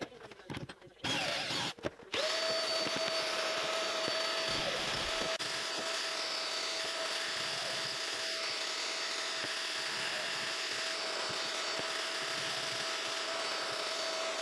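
A loud burst of noise, then a shop vacuum attached to a pocket-hole jig spins up about two seconds in and runs steadily with a constant whine.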